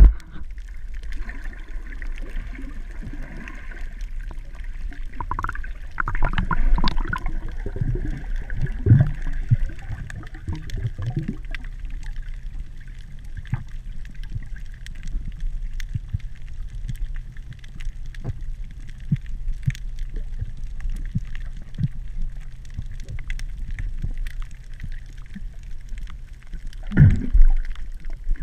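Muffled underwater water noise from a camera held below the surface: a steady low rumble and hiss with scattered faint clicks, and louder gurgling, bubbling bursts from about five to twelve seconds in and again briefly near the end.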